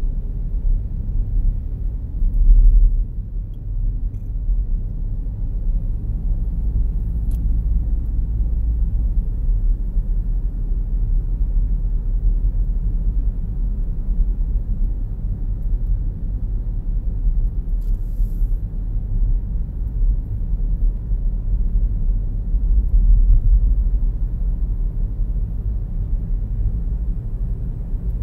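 Steady low road-and-engine rumble inside the cabin of a moving car, swelling briefly louder twice.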